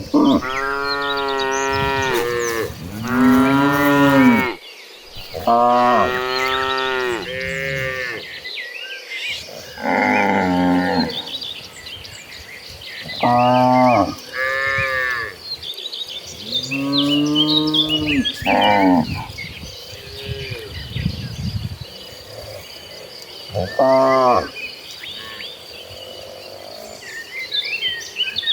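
A herd of cattle mooing, one long drawn-out moo after another, about ten calls, coming thick and overlapping in the first half and more spaced out later. A steady faint high whine and small chirps run underneath in the second half.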